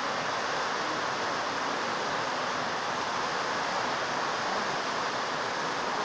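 Heavy tropical rain pouring down in strong wind: a steady, even rushing hiss.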